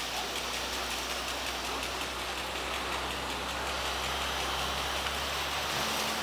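Water from a tripod-mounted rain gun sprinkler hissing out and pattering steadily onto the surrounding foliage. A low, steady engine hum runs underneath.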